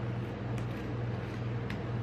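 Steady low hum of the rolled-ice-cream machine's refrigerated cold plate running. Over it, a couple of light ticks as metal spatulas spread the ice cream on the frozen steel pan.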